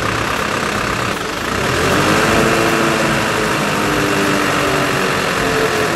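A truck-mounted crane's engine running under load as the crane works, getting louder about a second and a half in, with wavering tones over the engine noise.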